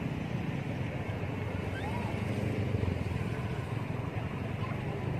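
Steady low background rumble, with a few faint short high squeaks.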